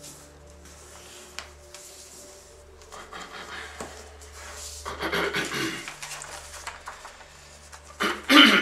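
Sheet of paper rustling under the hands as it is pressed along a fold and then opened out, getting louder from about three seconds in, with the loudest rustle near the end as the sheet is unfolded.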